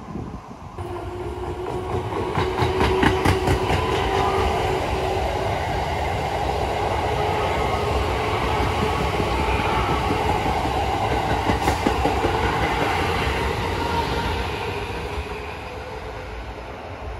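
Red Keikyu 1000-series electric train passing close by: wheels clattering over the rail joints in a quick run of clicks early on, over a steady motor whine and rumble. It fades as the train draws away near the end.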